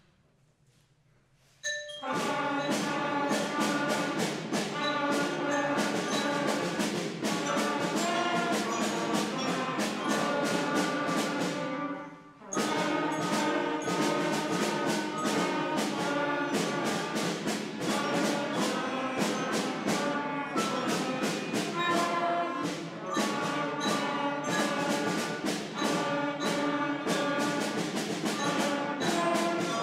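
Elementary school concert band of woodwinds and brass starting to play together after a short silence, stopping briefly about twelve seconds in, then playing on.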